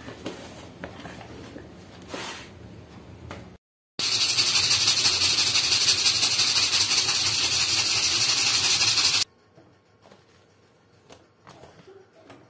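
Pressure cooker venting steam: a loud, steady hiss that starts abruptly about four seconds in, runs about five seconds and cuts off sharply. The cooker is up to pressure, steaming the meat inside. A few light knocks come before it.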